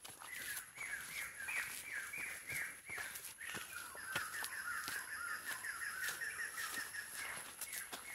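A forest bird calling in a fast run of repeated notes, a few per second, then breaking into a quicker, slightly lower chatter from about three and a half seconds in until near the end. Footsteps on the trail click underneath, and a thin steady high whine runs throughout.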